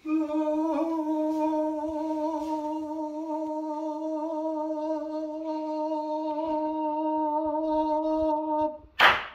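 A voice humming one long, steady note with a slight waver. It stops abruptly almost nine seconds in.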